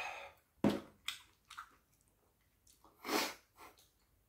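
A breathy exhale after a swallow of soju trails off, then a glass knocks down onto a wooden table about two-thirds of a second in, followed by a few light clicks of chopsticks and another breathy exhale around three seconds in.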